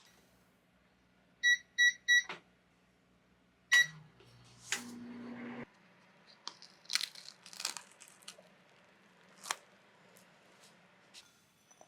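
Microwave oven beeping three times in quick succession, the usual signal that heating is done, then one more beep and a brief hum of about a second. Scattered clicks and light knocks follow, as of the door and a container being handled.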